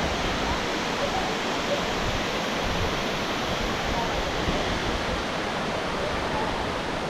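Waterfall: the steady noise of water falling and splashing.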